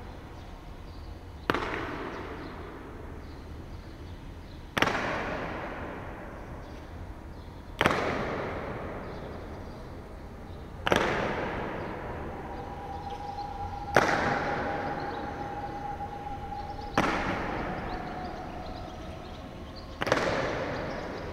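A heavy boom about every three seconds, seven in all, each dying away in a long echoing tail.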